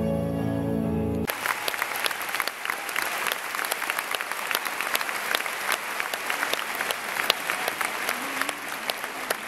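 Stage music cuts off abruptly about a second in, and an audience applauds, a dense steady clapping.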